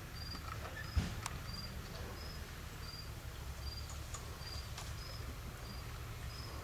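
An insect chirping steadily, one short high chirp about every two-thirds of a second, over a low steady rumble. A single sharp knock about a second in.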